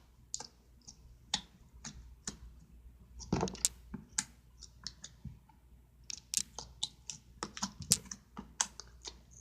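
Irregular sharp clicks and small taps from slime being handled and pressed in plastic containers, coming closer together in the last few seconds.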